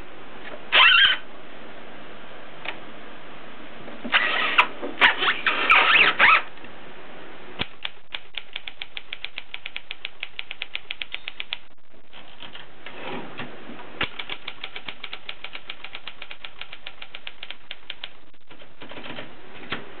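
ABC portable typewriter being worked: a few louder rattling bursts in the first six seconds, then typing, with an even run of key strikes at about eight a second from about eight seconds in, followed by lighter, irregular clicks.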